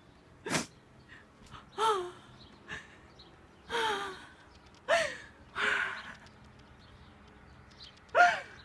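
A woman's distressed gasps, sighs and short wordless cries, several times over, some with a falling pitch. There is a sharp knock about half a second in.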